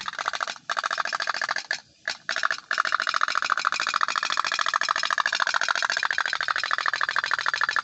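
Otok-otok (pop-pop) toy steam boat running: a rapid, even train of popping pulses. It breaks off briefly a few times near the start, then runs steadily.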